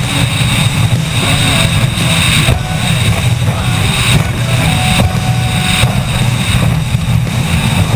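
A powerboat's engines droning steadily at speed, with a low, even rumble and hissing wind and water noise over it.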